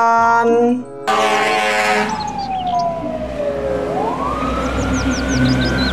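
Fire engine siren wailing, cutting in suddenly about a second in: one slow fall in pitch over about three seconds, then a rise again, over low traffic rumble, with a few short high chirps.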